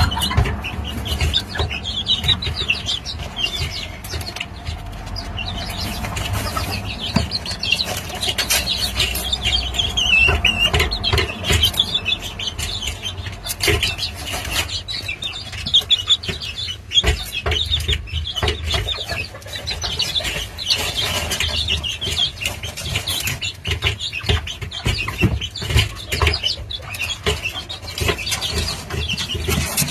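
Serama hen making repeated high, wavering calls, over frequent short knocks and a low rumble close to the microphone.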